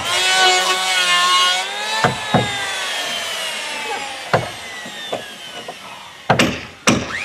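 Electric hand planer running and cutting timber, its motor whine slowly dropping in pitch under load. A few short knocks come through, and a louder burst of cutting follows about six seconds in.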